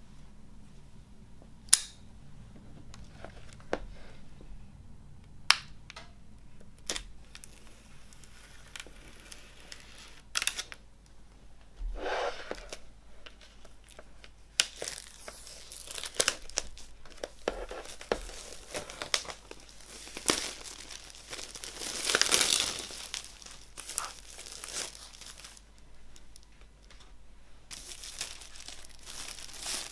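Clear plastic shrink wrap being torn open and pulled off a vinyl LP sleeve, crinkling and crackling, loudest a little past the middle. A few sharp clicks come before the tearing starts.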